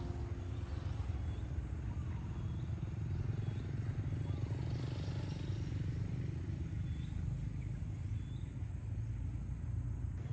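Outdoor field ambience: a steady low rumble, with a small bird giving short high chirps every second or two.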